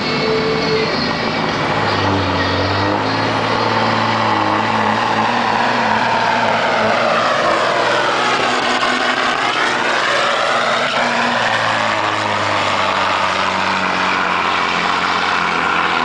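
Peterbilt semi truck's diesel engine running hard under load while pulling a weight-transfer sled, passing close by about halfway through, then moving away.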